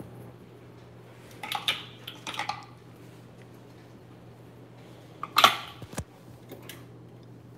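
Kitchen clatter of cooking items and utensils being handled and set down beside a frying pan, with a few short clattery bursts and a louder knock about five and a half seconds in, over a low steady hum.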